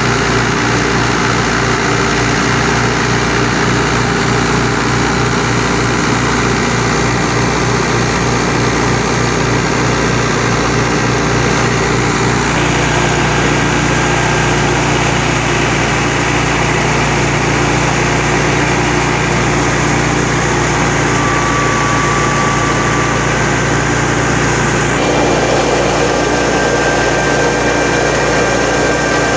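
Fiat 640 tractor's diesel engine running steadily under load, driving a wheat thresher through its spinning PTO shaft, with the thresher's drum and belts running along with it. The pitch of the steady hum shifts a little twice.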